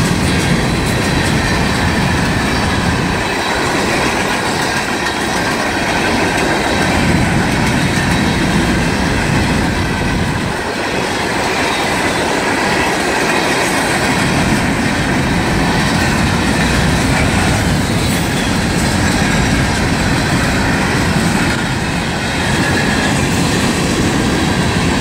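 Freight train cars rolling past at speed, a loud, steady rumble and rattle of steel wheels on the rails.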